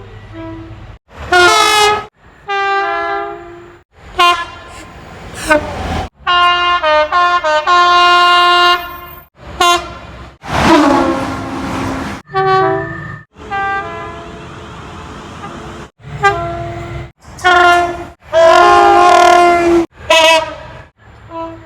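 A rapid series of British mainline train horns, each clip cut off abruptly, many sounding a two-tone blast of high and low notes. About ten seconds in, one horn drops in pitch.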